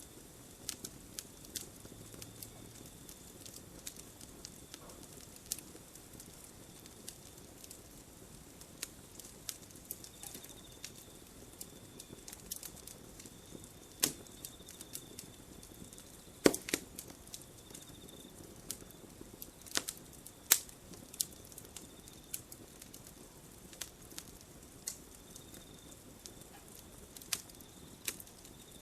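Wood fire burning with scattered sharp pops and crackles over a low hiss, a few louder snaps standing out, about halfway through and a little after.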